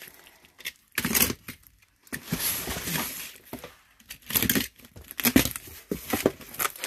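A utility knife slitting the packing tape on a cardboard box, then the cardboard flaps being pulled open: a series of short ripping, scraping bursts.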